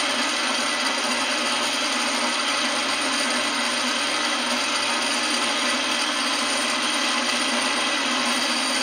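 Electric motor of an old Mueller spin dryer running with the drum spinning, a steady, even whir. The motor is being tested on a capacitor wired straight to the mains.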